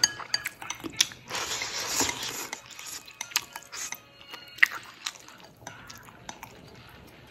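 Close-up eating sounds: a long slurp of hand-pulled noodles about a second in, with sharp clicks of wooden chopsticks against a porcelain bowl and mouth sounds before and after. It grows quieter near the end.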